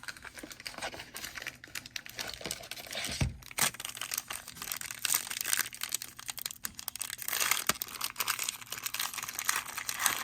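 Plastic trading-card pack wrapper being torn open and crinkled, with a dull thump about three seconds in.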